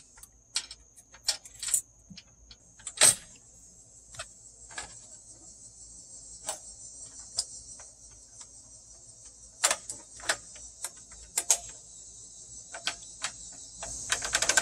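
Scattered sharp clicks and knocks from a screwdriver working in the spring end cap of an awning roller as it is turned to wind up the spring tension, with a fast run of clicks near the end. Behind it runs the steady high chirring of crickets.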